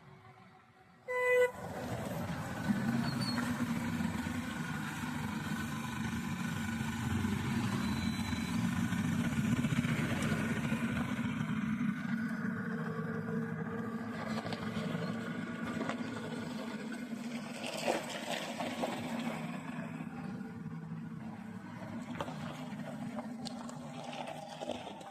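A short horn toot about a second in, then heavy diesel machinery running steadily: a transit mixer truck and concrete pump at work as the mixer discharges concrete into the pump.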